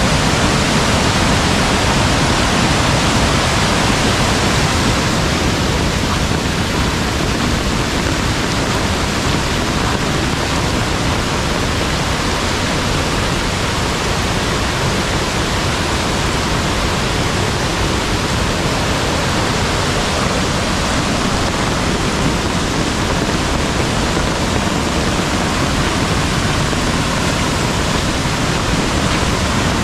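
Mountain valley stream swollen by heavy rain, rushing with a steady, even loud noise.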